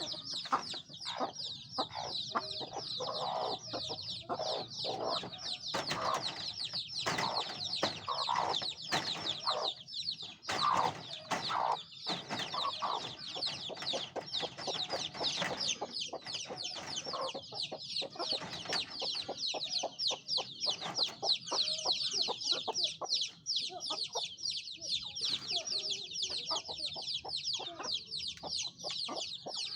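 A brood of domestic chicks peeping without a break, many high, short, falling peeps overlapping, the chicks calling for their mother hen. A hen clucks lower down, mostly in the first half.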